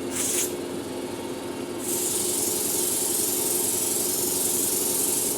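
Spray mist gun of a facial beauty machine spraying water mist: a short puff of hiss, then a steady hiss from about two seconds in that stops near the end, over a steady low hum from the machine.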